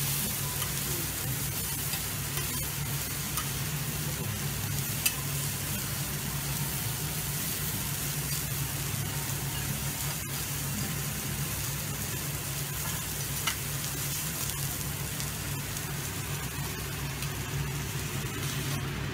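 Kobe beef steak sizzling steadily on a steel teppanyaki griddle, with a couple of sharp clicks as the chef's knife and spatula touch the griddle.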